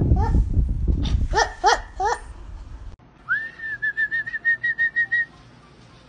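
Rustling with a few short rising squeaky animal cries, then a rapid run of about a dozen whistled notes at one pitch, about six a second, like a trilled whistle calling a pet to come.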